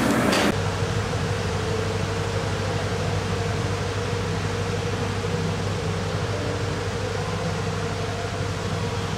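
Steady hum and hiss of machinery running in a large foundry hall, even and unchanging, with a low droning tone under the hiss.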